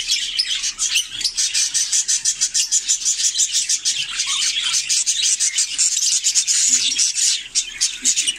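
A flock of budgerigars chattering and warbling together: a dense, unbroken stream of rapid, high-pitched chirps and clicks.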